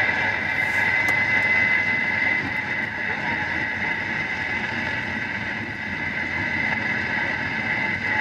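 Steady road and tyre noise of a car cruising at expressway speed, with a constant high hum over it.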